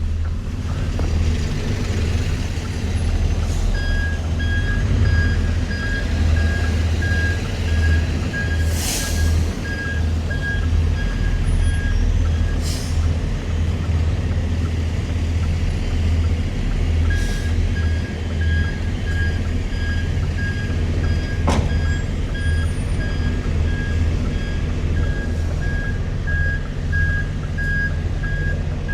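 Articulated lorry's diesel engine running at low speed while it reverses, its reversing alarm beeping about twice a second in two long runs with a pause between. A few short air-brake hisses sound around the middle.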